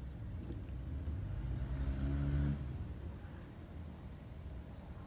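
A motor vehicle driving past on a wet road: engine hum with tyre hiss, swelling to its loudest about two seconds in and then easing off.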